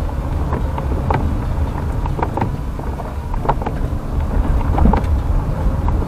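Car driving, heard from inside the cabin: a steady low rumble from the engine and tyres on the road, with scattered short ticks and knocks.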